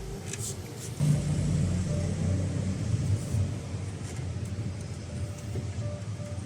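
A steady low rumble like a vehicle engine running, which swells about a second in and holds, with a few faint clicks near the start.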